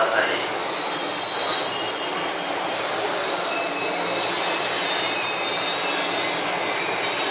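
JR 211 series electric commuter train slowing along the platform as it arrives, with high-pitched squealing from the brakes and wheels in the first few seconds. Steadier, slightly quieter rolling noise follows as it creeps forward.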